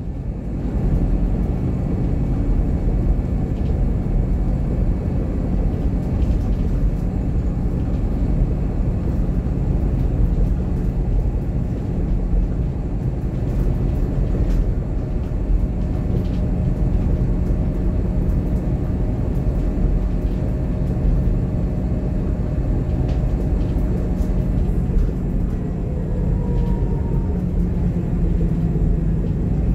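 Interior sound of a Scania K280IB coach, its Scania DC9 inline five-cylinder diesel and driveline giving a steady low drone heard through the cabin. Near the end a faint rising whine comes in.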